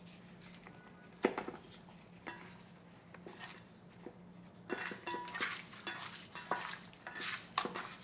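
Hands rubbing salt into pieces of raw chicken breast in a stainless steel mixing bowl: soft handling sounds with light knocks against the bowl, a few isolated ones at first and busier from about halfway through.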